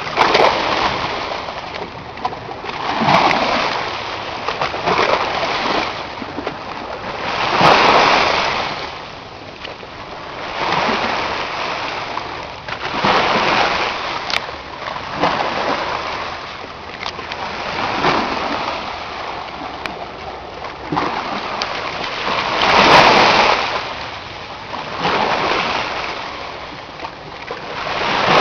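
Red Sea waves breaking and splashing, a new surge swelling and falling away every two to three seconds.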